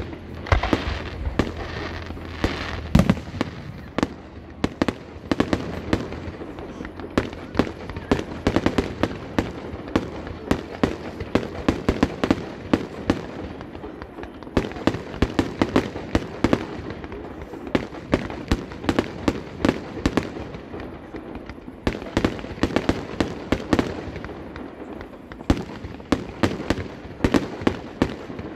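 Aerial fireworks display: shells bursting in a rapid, uneven barrage of sharp bangs, several a second, with a few short lulls.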